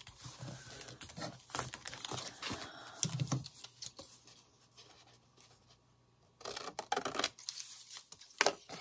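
Paper rustling and being handled, with a few sharp clicks and taps; it pauses near the middle, then a louder rustle follows.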